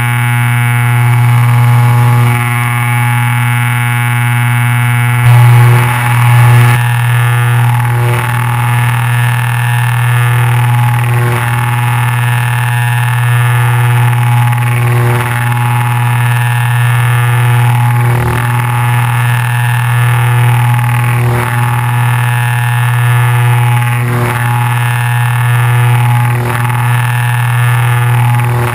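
Twin engines and propellers of a Piper PA-31-350 Navajo Chieftain droning steadily in flight, heard inside the cockpit, with a deep steady hum from the propellers. The sound is coarse and buzzy from the camera mount vibrating.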